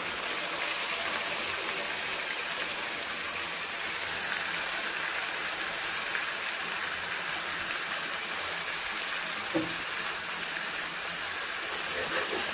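Marinated chicken pieces sizzling steadily in hot oil and spice masala in a frying pan, just after going in. There is a single knock about nine and a half seconds in, and a spatula starts stirring near the end.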